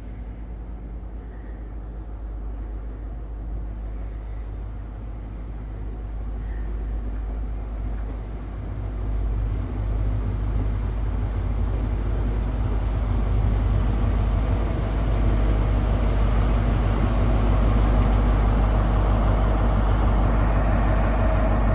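A train approaching, its low rumble growing steadily louder.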